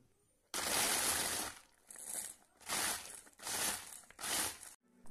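Hand-pulled string chopper worked in five quick pulls, each a whirring, crunching burst of the spinning blades crushing biscuits inside. The first pull is the longest, and the sound cuts off suddenly near the end.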